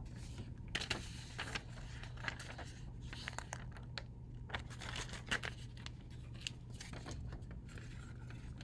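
Faint scattered small clicks and rustling over a steady low hum.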